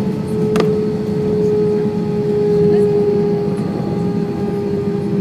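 Airbus A320 cabin noise: a steady engine drone and hum with a steady whine over it, and a single sharp click a little over half a second in.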